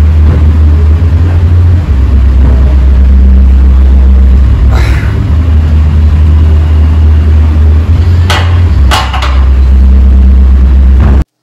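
A loud, steady low rumble, with a few sharp metallic clanks about eight to nine seconds in as the barbell is set back on the squat rack. The sound cuts off abruptly just before the end.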